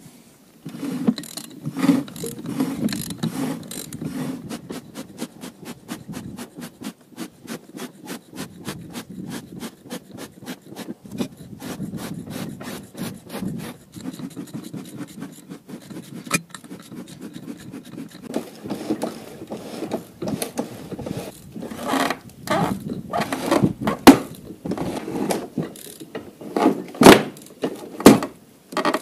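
Buran snowmobile's track and running gear clicking rhythmically, several times a second, as it moves along. In the last third come louder knocks and creaks from wooden planks as it rolls onto a board floor.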